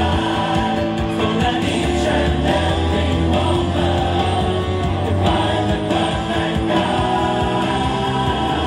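Loud music with singing and a strong bass, played over a parade float's sound system.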